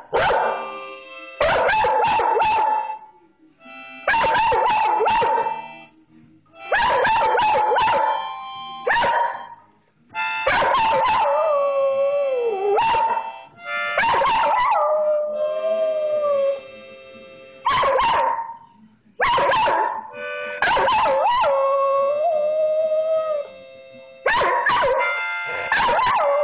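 A harmonica is played in short bursts of chords about every two to three seconds, and an Australian Cattle Dog howls along. The howl glides and wavers in pitch, carrying on between the harmonica bursts in the second half.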